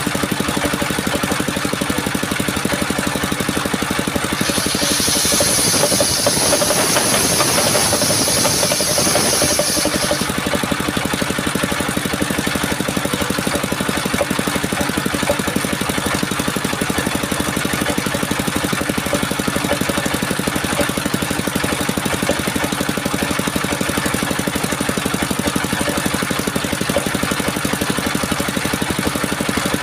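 Mobile circular sawmill's engine running steadily. From about four to ten seconds in, a loud high hiss joins it as the blade cuts through a coconut-palm trunk.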